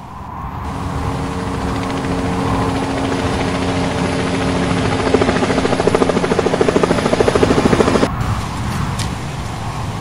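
Dubbed sound effect of a rotor aircraft: a steady engine hum, with fast, even rotor chopping that builds in the second half and cuts off suddenly about eight seconds in.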